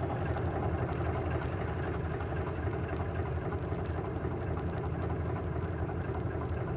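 Engine of a heavy cable winch running steadily under load, with a faint steady whine over it, as it hauls a pipeline section across the riverbed.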